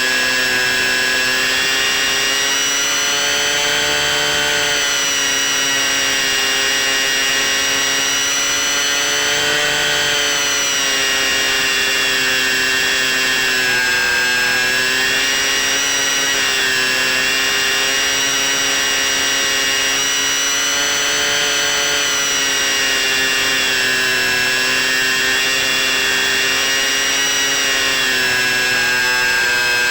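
C1 Chaser model plane's motor and propeller running steadily in flight, a whining tone that rises and falls gently every few seconds as the throttle and airspeed change.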